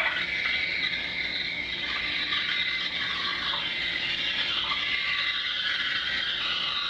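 Steam wand steaming a cup of milk: a steady, high hiss, a terrible noise.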